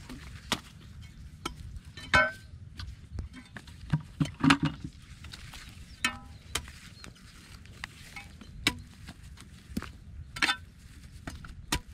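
Metal spade knocking and scraping against hard dry mud and clods, in irregular strokes, a few of them ringing briefly like a clink.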